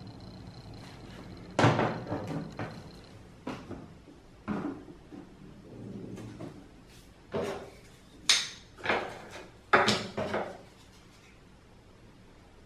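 Pottery tools being set down and handled on a wooden shelf: a series of about nine irregular knocks and clatters, the loudest about two seconds in and near ten seconds in.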